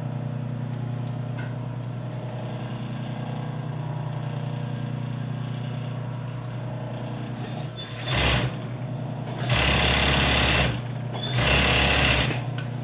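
Sewing machine motor humming steadily, then three short bursts of fast stitching in the last five seconds, the middle one the longest at about a second.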